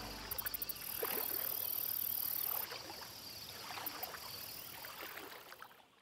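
Kayak paddle dipping into the water, with small splashes and drips off the blades coming irregularly, over a steady high insect chirring. It fades out near the end.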